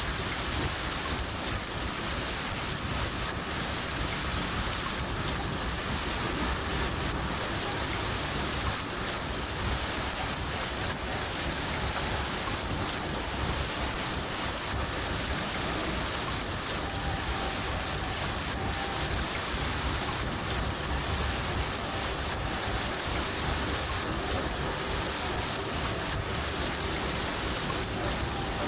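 Field cricket chirping steadily, about two to three chirps a second, over a soft hiss of rain.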